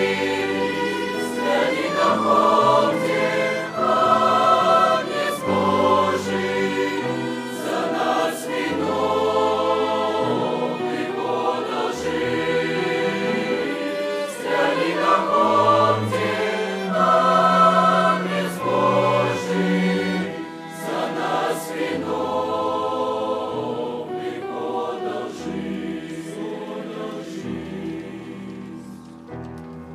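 Youth choir singing a hymn, growing quieter over the last few seconds.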